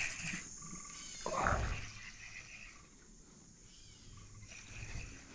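A frog croaks once, a short call about a second and a half in.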